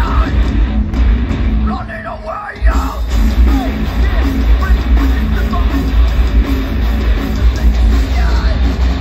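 Live heavy metal music played loud over an arena PA: distorted guitar over heavy bass, with a short break about two seconds in where the bass drops out before the track comes back in.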